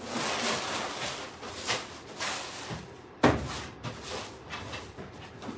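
Metal wire dog-pen panels rattling and knocking as they are handled, with one sharp clank about three seconds in.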